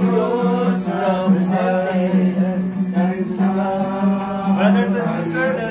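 People singing a hymn together over accompaniment music, with a held low note underneath that steps down near the end.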